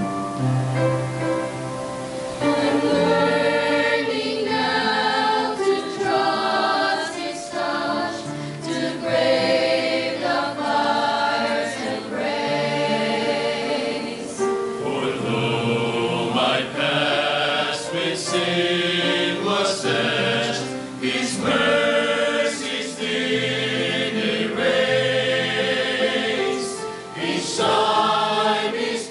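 Mixed church choir singing a hymn with piano accompaniment.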